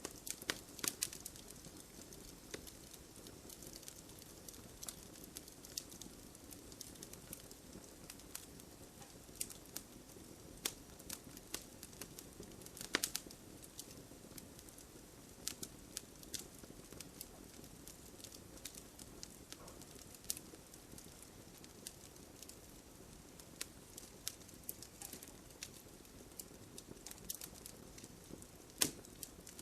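Wood fire crackling in a fireplace: a soft steady hiss with irregular small pops and snaps. A louder pop comes about halfway through and another near the end.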